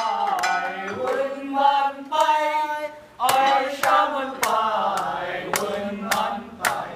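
Voices chanting a sung melody, with sharp percussive clicks struck now and then and a short break about three seconds in.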